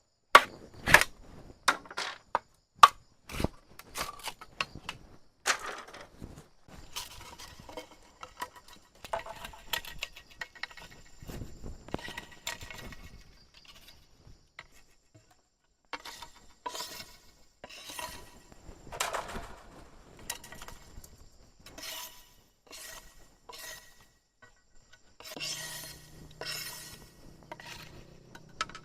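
A quick run of sharp knocks and clinks in the first few seconds, then scattered scraping, rustling and handling noises of hard objects.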